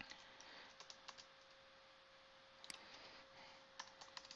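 Faint, scattered clicks of a computer mouse and keyboard keystrokes during data entry: a few in the first second, a single one in the middle, and a few more near the end. A faint steady hum lies underneath.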